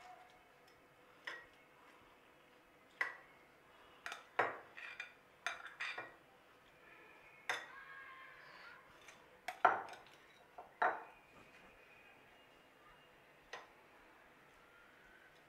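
Steel serving spoon clinking and scraping against a glass bowl and a glass pickle jar as the pickle is spooned across. About a dozen irregular sharp clinks, some ringing briefly; the loudest comes about ten seconds in.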